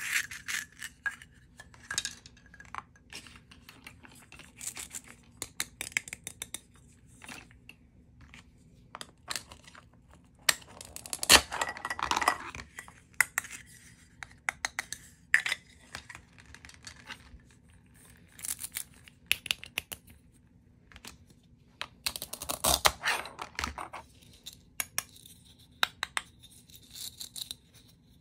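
Plastic toy food pieces being handled and fitted together: scattered light clicks and taps of hard plastic, with two longer scratchy rasps, one about eleven seconds in and one about twenty-two seconds in.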